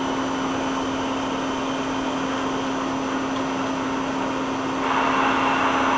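Live rotary tool on the turret of a 1999 Daewoo Puma 200LMSA CNC turning/milling center, spinning at 500 RPM: a steady machine hum with a steady tone. Near the end it steps up louder as the live-tool speed is raised toward 1,000 RPM.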